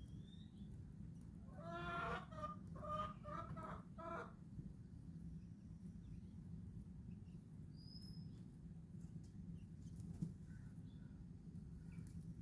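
A chicken clucking: a quick run of four or five short calls about two seconds in. A few faint, high chirps come later, over a steady low hum.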